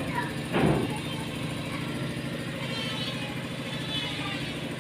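A small engine running steadily at low revs, with one short, loud burst of noise a little over half a second in.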